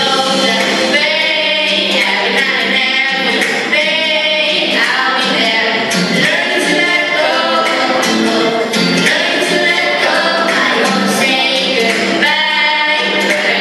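Teenage girls singing a song into microphones, amplified through a hall sound system, with a group of children's voices singing along.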